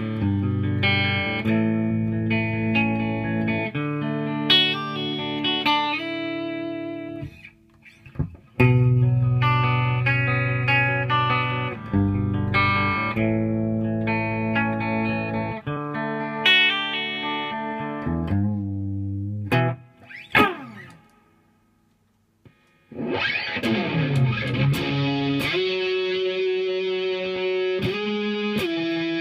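1986 Japanese Fernandes Explorer BX70 electric guitar played through an amplifier: chords and single notes strummed and let ring, with a few short pauses. After a quick pitch glide and a moment of near silence about two-thirds of the way through, the tone turns denser and more distorted.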